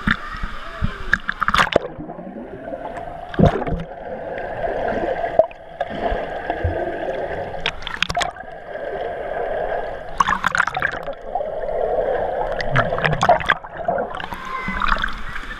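Wave-pool water splashing over a camera held at the waterline, with muffled gurgling while it is under the surface. Several sharp splashes come a few seconds apart as waves wash over it.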